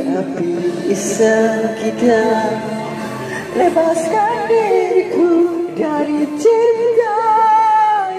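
Karaoke singing: a single voice sings a melody into a handheld microphone over a backing track, holding wavering notes.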